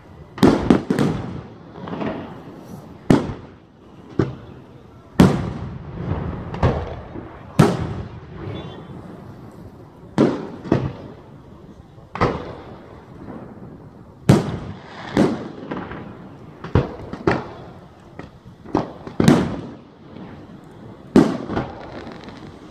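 Aerial firework shells bursting overhead one after another, a sharp bang every second or so, each trailing off in an echo.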